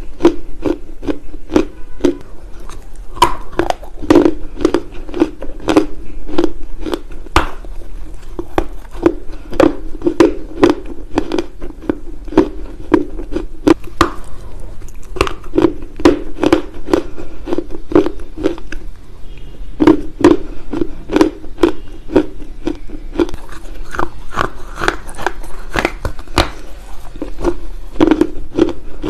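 Dry loess clay chunks being bitten and chewed close to a clip-on microphone: a steady run of sharp crunches with dull chewing thuds between them.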